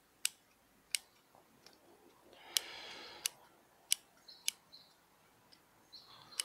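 Scissors snipping the roots of a bonsai root ball during root pruning for a transplant: about seven sharp snips at irregular intervals, with a brief rustle of soil and roots about halfway through.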